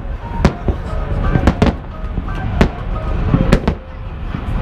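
Fireworks bursting: a string of sharp bangs, irregular but about two a second, over a steady low rumble.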